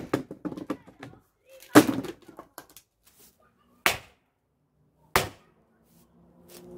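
Splitting maul striking and splintering wood, four sharp blows; after each of the first two, broken pieces clatter down onto the paving slabs.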